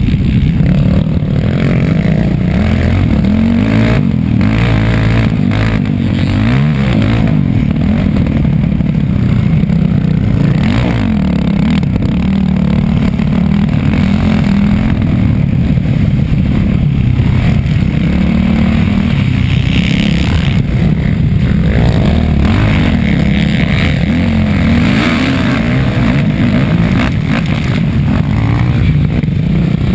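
Off-road dirt bike engine, heard close from the bike's own mounted camera, revving up and down as the rider accelerates, shifts and backs off along a rough dirt race track; its pitch keeps rising and falling.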